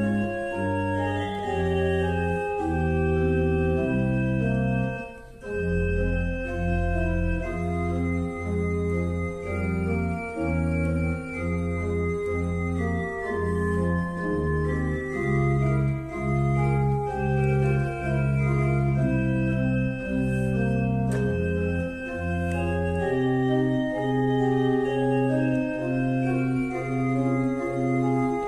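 Organ music: slow, sustained chords moving over a bass line, with a brief break about five seconds in.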